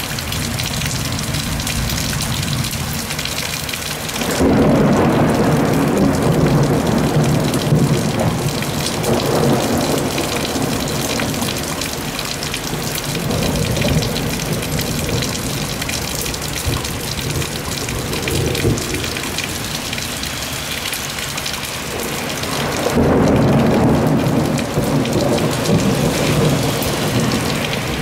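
Heavy rain pouring steadily on a city during a thunderstorm, with rolling thunder. A loud peal breaks in about four seconds in and rumbles on for several seconds. Fainter rumbles follow, and a second strong peal comes near the end.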